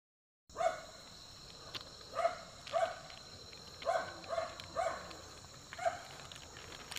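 An animal giving about seven short, similar calls at irregular intervals, over a steady high-pitched insect drone.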